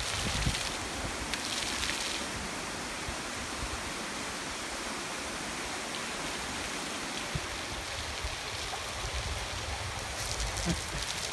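Steady rushing hiss of ground-level splash-pad fountain jets spraying water onto stone paving.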